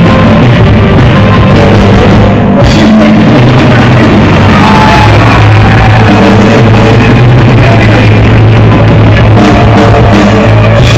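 Loud pop-rock music from a band, with a drum kit keeping the beat under sustained guitar and vocal notes.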